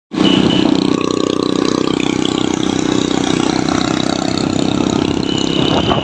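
Motorcycle engine running steadily under way, heard from the riding bike, with a thin high whine that comes in briefly near the start and again near the end.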